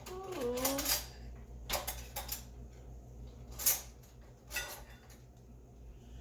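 Kitchen utensils and dishes clinking and knocking in a handful of separate sharp strikes, the loudest just past the middle, as garlic is handled at the stove.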